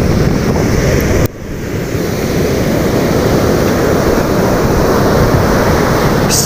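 Ocean surf breaking and washing up the beach, a steady loud rush, with wind buffeting the microphone. The sound drops out abruptly a little over a second in, then comes back.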